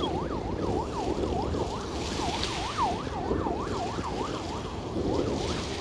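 Ambulance siren wailing in a fast yelp, its pitch sweeping up and down about three to four times a second without a break. Wind rumble on the microphone runs underneath.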